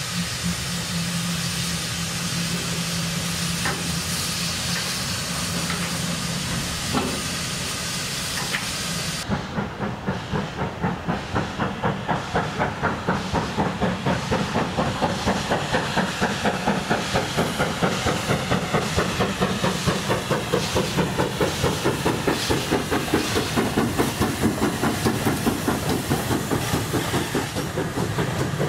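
Steam hissing steadily from a standing Great Western Saint class 4-6-0 steam locomotive. After a cut about nine seconds in, a steam-hauled train passes with an even rhythmic beat of about three a second as its coaches go by.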